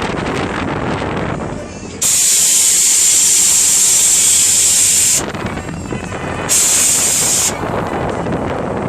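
Two loud hissing blasts of air from the Hurricane Jets fairground ride: a long one of about three seconds, then a shorter one about a second later. Steady ride and fairground noise runs beneath.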